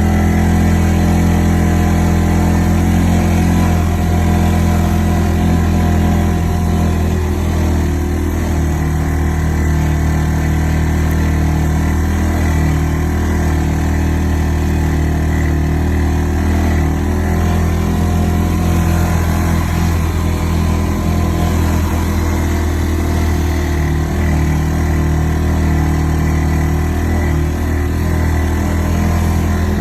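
ATV engine running at a steady, even speed, with no revving.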